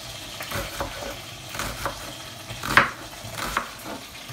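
Hot oil sizzling steadily in a frying pan, with a utensil stirring and knocking against the pan several times, the loudest knock near three seconds in.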